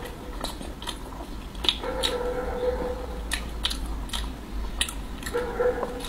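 Close-miked biting and chewing of a soft mung bean cake with a thin pastry skin: irregular wet mouth clicks and smacks, about a dozen over the few seconds.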